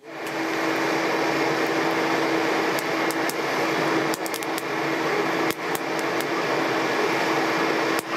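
Electric forge blower running steadily, driving air into a charcoal fire: a loud, even rush of air with a steady motor hum, and scattered sharp crackles from the burning coals.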